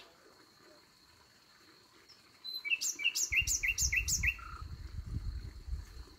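Nightingale singing a phrase of about five quick repeated notes, starting about two and a half seconds in. A steady high thin tone runs under it, and a loud low rumbling noise starts just after the song begins.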